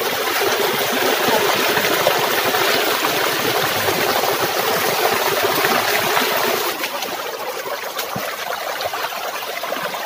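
Shallow mountain stream rushing and splashing over rocks in a small cascade, heard close up. It is steady, then a little quieter about two-thirds of the way through.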